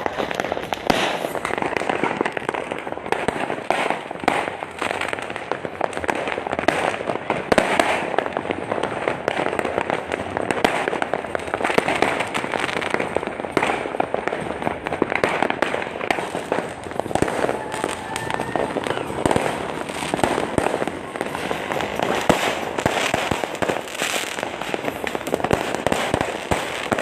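Dense, continuous crackling and banging of many fireworks and firecrackers going off at once, with no pauses.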